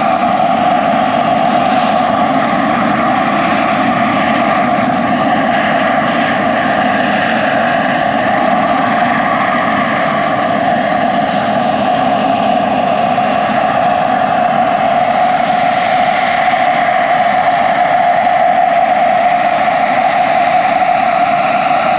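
The JetCat PHT3-XL model gas turbine of a large-scale RC Bell 430 helicopter runs at flight power as the helicopter hovers and flies: a loud, steady turbine whine mixed with rotor noise.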